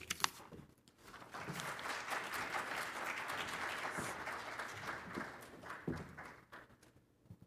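A couple of sharp clicks, then an audience applauding, starting about a second in and fading out near the end.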